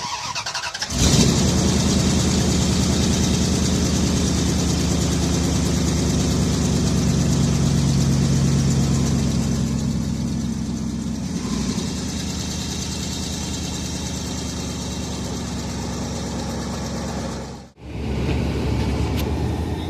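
Dodge Ram 1500 pickup engine cranking and catching about a second in, then idling steadily. The idle eases down somewhat after about ten seconds.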